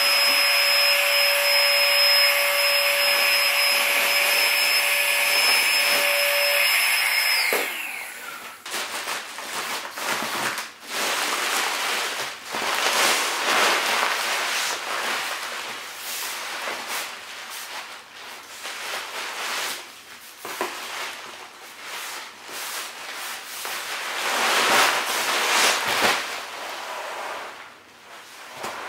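A small electric air pump runs steadily with a whine and cuts off about seven and a half seconds in. After that, the inner material of a Therm-a-Rest NeoAir XTherm Max inflatable sleeping pad crinkles and rustles in irregular bursts as a person kneels, shifts and lies on it, a sound that is still a little annoying.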